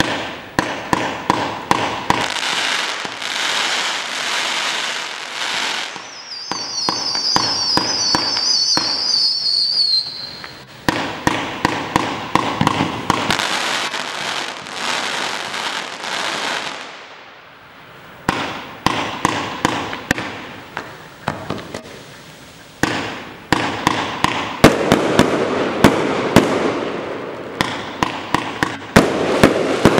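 Kimbolton Regal compound firework cake firing: rapid volleys of shots over a continuous crackling hiss, with brief lulls between segments. About six seconds in, a high whistling sound runs for about four seconds, falling slightly in pitch.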